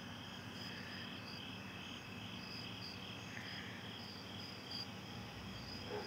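Evening chorus of crickets and other insects: steady, high-pitched trilling and pulsed chirping, faint.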